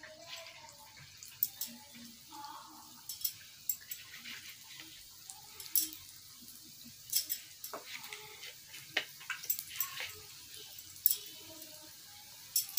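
Dough rings deep-frying in hot oil in a pan: the oil sizzles with irregular sharp crackles and pops.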